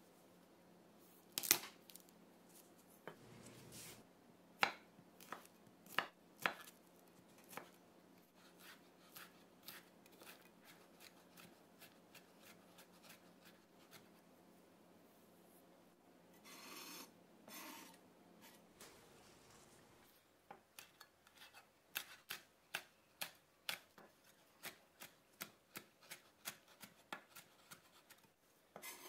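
Chef's knife chopping garlic and then green chili on a wooden cutting board: sharp knocks of the blade against the board. Scattered strokes come first and a brief rasp comes about two-thirds in; near the end an even run of chops follows at about two a second.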